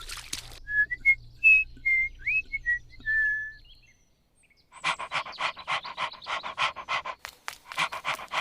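A run of short whistled notes, a few gliding upward, then a pause. After that a fast, even pulsing sound, about seven pulses a second, with a brief break near the end.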